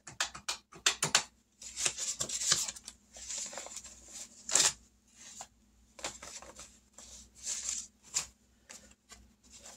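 Paper rustling and crinkling in short, irregular bursts with a few sharp clicks: savings envelopes and paper money being handled and sorted.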